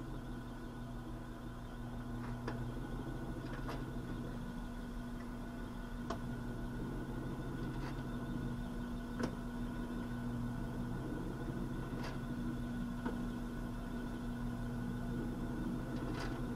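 Benchtop drill press motor running steadily with a low hum, with a few faint clicks here and there.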